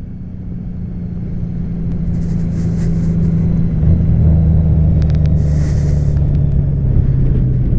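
2014 Honda Valkyrie's 1832cc flat-six engine running on the road, growing louder over the first few seconds as the bike gets under way, with its pitch stepping down about four seconds in.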